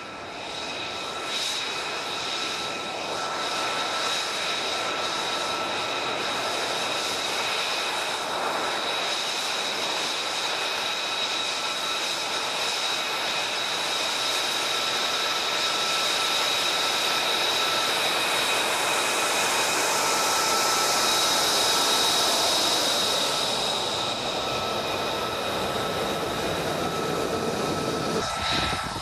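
F-35 Lightning II's F135 turbofan running as the jet taxis past: a steady high whine over a rushing jet noise. It grows louder to a peak about two-thirds of the way through, then eases, and the sound changes abruptly near the end.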